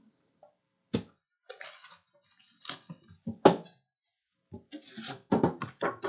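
Cardboard card boxes being handled: a sealed box slid out of its case and set down, with scraping rustles and several knocks, the sharpest about three and a half seconds in.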